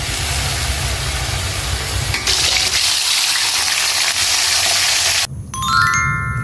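Water running steadily from a tap, a rushing hiss that grows brighter about two seconds in and cuts off abruptly just after five seconds. A short run of ringing chime notes follows.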